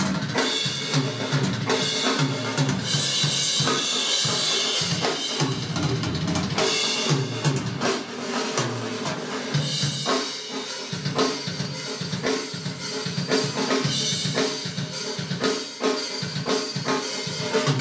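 Drum kit played alone: kick drum, snare and cymbals in a busy rock beat, with cymbal crashes washing over it a few seconds in.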